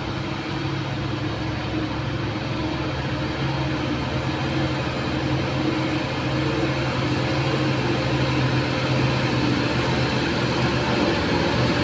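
Diesel engine of a loaded cargo truck pulling steadily under load, a low steady drone that grows louder as the truck comes closer.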